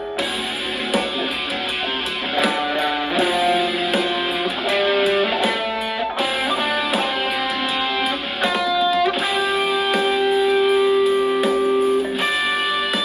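Electric guitar on the bridge pickup through a Positive Grid Spark Go mini smart amp on a lead (solo) preset, improvising single-note lines with bends over a D minor backing track. A long sustained note rings out in the second half.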